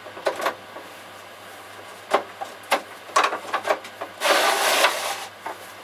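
Handling sounds of leather-hard pottery pieces and tools on a workbench: a few separate knocks, then a scraping rub lasting under a second, about four seconds in.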